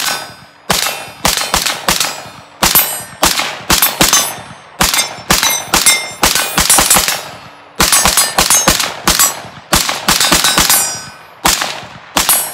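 Rapid semi-automatic fire from an AR-15 short-barrelled rifle with a 7-inch 5.56 barrel and a muzzle brake: about thirty loud, sharp shots in quick strings, two to three a second, each with a short ringing tail. The firing stops just before the end.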